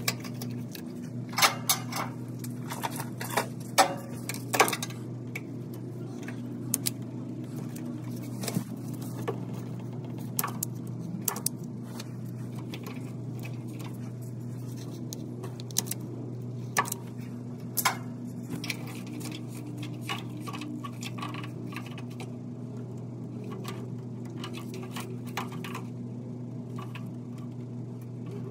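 Scattered small clicks and taps of gloved hands working thin wires and plastic harness clips on a truck's wiring harness, busiest in the first few seconds, over a steady low hum.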